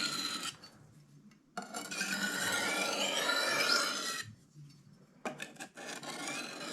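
A large steel knife blade drawn across a coarse sharpening stone by hand, steel scraping on stone in long slicing strokes with short pauses between them and a few quick short strokes about five seconds in.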